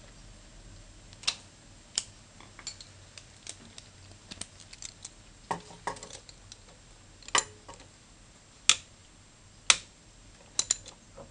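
Sporadic light clicks and taps of hands and a small hand tool working at the plastic strap that holds the stator wire on a GY6 scooter engine, with several sharper clicks spread through the stretch.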